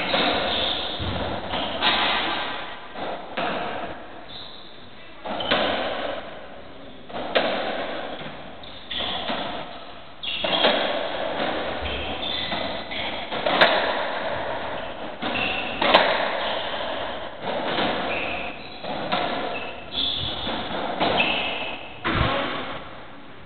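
Racketball rally on a squash court: the ball struck by rackets and hitting the walls about once a second, each impact ringing in the hall, with short shoe squeaks on the wooden floor. The hits stop near the end.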